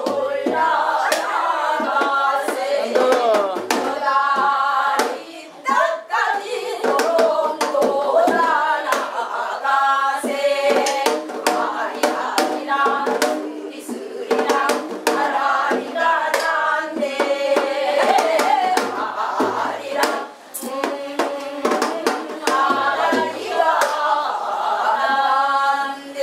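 Several women singing a Namdo folk song together in the wavering, bending southern Korean style, with strokes of a buk barrel drum keeping time.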